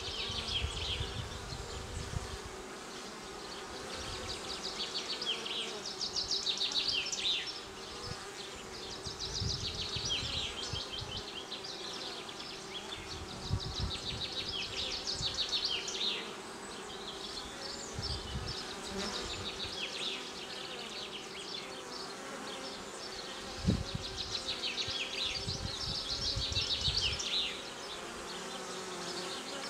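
Honeybees buzzing at the hive entrance, a steady hum from many workers landing and taking off. Bouts of high, scratchy chirping come and go over the hum, and there is one short thump about two-thirds of the way through.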